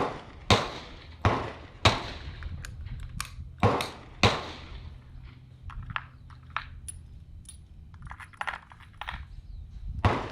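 Gunshots on a rifle range: about six sharp reports in the first four and a half seconds, some only half a second apart, followed by lighter clicks and knocks.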